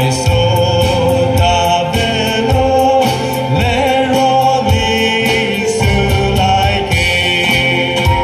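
Male voices singing together over live acoustic guitar and keyboard accompaniment, with a steady beat.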